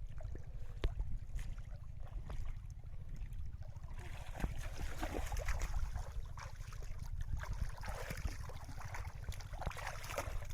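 Water splashing and sloshing, picking up about four seconds in with a busy run of irregular splashes, over a steady low rumble.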